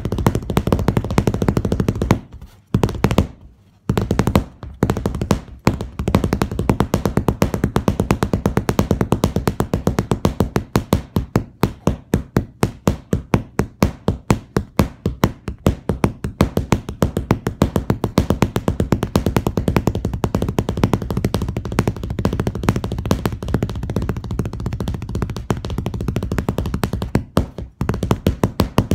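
Sewing machine stitching: a steady motor hum under rapid, even needle strokes at about five or six a second, pausing briefly a couple of seconds in and again near the end.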